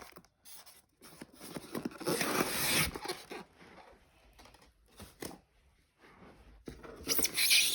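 Packaging being handled: plastic wrap and cardboard rustling and crinkling in two spells of a second or two each, with a couple of light knocks between.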